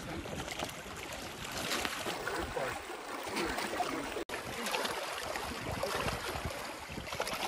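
Wind on the microphone over choppy lake water washing against the rocks of the shoreline.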